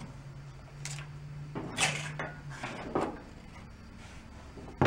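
Metal parts being handled as the alternator stator coil is worked up and off the crankshaft of a Kohler Command engine: several short scraping, rattling movements, then one sharp knock just before the end.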